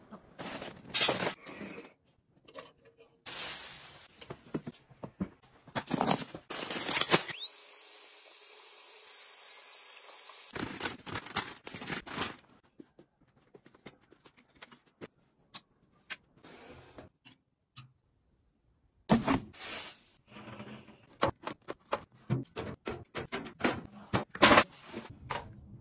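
Household items being handled and set in place: a run of clicks, knocks and handling noises. A little after the start, a small motor whines high and steady for about three seconds, its pitch sweeping up as it starts.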